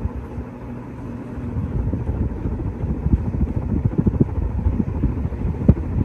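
Hampton Bay Wellston ceiling fan running, heard as a low, uneven rumble.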